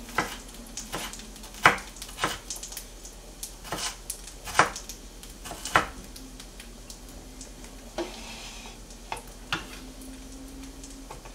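Food sizzling in a frying pan, with about ten irregular clicks and knocks of kitchen utensils on cookware.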